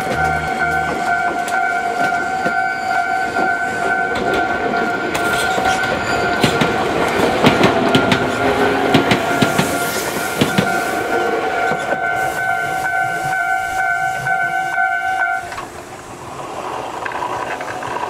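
Level-crossing warning bell ringing steadily while an electric train passes, its wheels clacking over the rail joints loudest near the middle. The bell cuts off about three-quarters of the way through.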